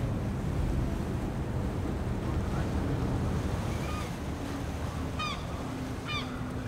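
Outdoor wind and a low, steady rumble on the microphone, with a few short, high calls about four, five and six seconds in.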